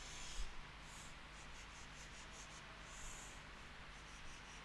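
Chalk scratching on a chalkboard as lines and a zigzag resistor symbol are drawn: a quick run of short strokes, a longer stroke about three seconds in, and a few more short strokes near the end, with a soft thump at the start.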